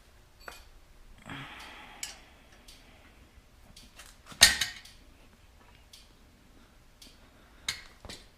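Small metal parts clinking and knocking while being handled, with a brief scrape early on, one loud clank about halfway through and a sharper knock near the end.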